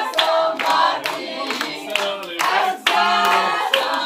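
A group of people singing or chanting together while clapping their hands in time.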